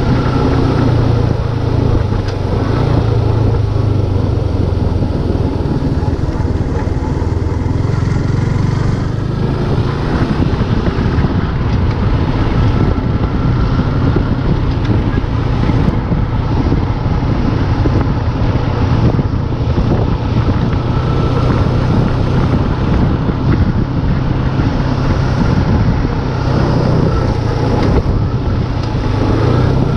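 Motorcycle engine running steadily while riding, with a continuous low hum that holds level throughout.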